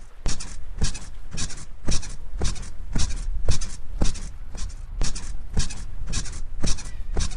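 Bed springs squeaking in a steady rhythm, about two squeaks a second, over a low steady rumble.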